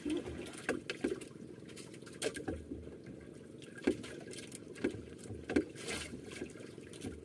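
Water lapping against the hull of a small outrigger boat at sea, with scattered sharp knocks and clicks, about eight in all.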